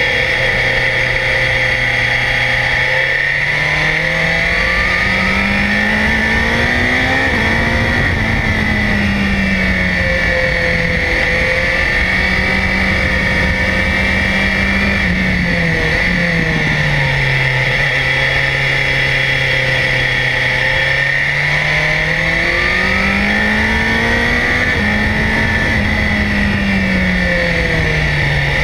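BMW S1000XR's inline-four engine under way, heard from close by: revs climb and fall repeatedly as the rider accelerates and rolls off through the bends, with a sudden drop in revs about halfway through.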